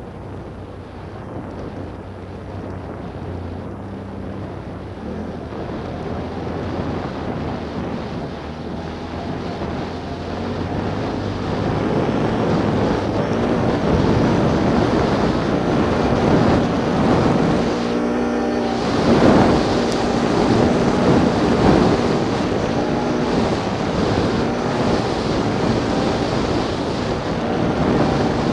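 Motor vehicle engines running and revving, growing steadily louder through the first half as they come closer, with shifts in pitch about two-thirds of the way in. Wind buffets the microphone throughout.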